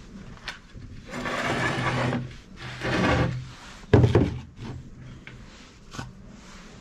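Two long scraping strokes, then a heavy knock about four seconds in, with a few light clicks.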